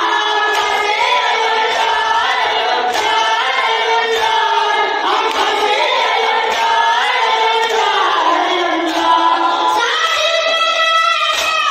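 A boy and a group of men singing a noha, a Shia mourning lament, together in a continuous chanted melody.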